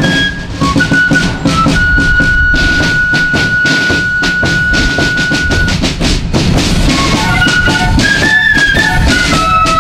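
Marching flute band playing: flutes hold one long high note, then move into a running melody, over steady drumming with bass drum.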